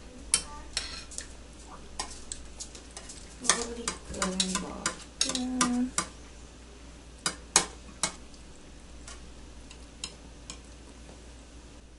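Kitchen utensils knocking and scraping against a pot or bowl as food is stirred: irregular clicks, thickest in the middle, with a few short low-pitched tones among them.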